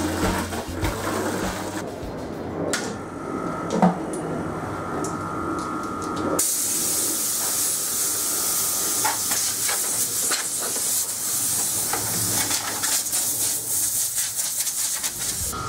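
Compressed air hissing steadily from a blow gun on a coiled hose fed by a homemade compressor built from an air-conditioner compressor. The blast starts about six seconds in.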